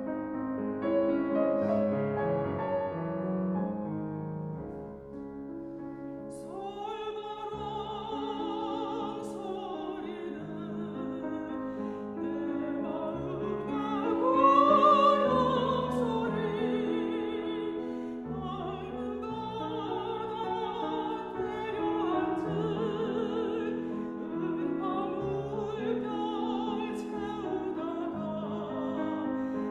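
Mezzo-soprano singing a Korean art song (gagok) with piano accompaniment. The piano plays alone for about the first six seconds, then the voice enters with a wide vibrato and swells to a loud, held high note about fifteen seconds in.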